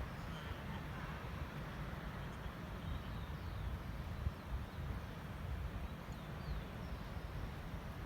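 Outdoor forest ambience: a steady, uneven low rumble with a few faint, short bird chirps scattered through it.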